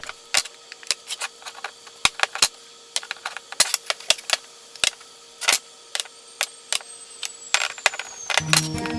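Light hammer taps, an irregular run of sharp clicks several times a second. Guitar music comes in near the end.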